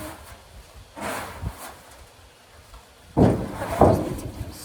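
A brief rustle, then two loud, sudden thumps about half a second apart near the end.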